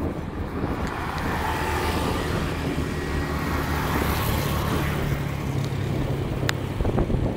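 A small motorcycle or scooter engine running steadily close by as it passes and pulls ahead, its noise fullest about four seconds in. There is a sharp click about six and a half seconds in.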